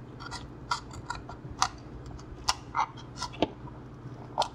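Hobby knife blade carving a bevel into EPP foam, giving a run of small irregular crackling clicks, two or three a second, over a faint steady low hum.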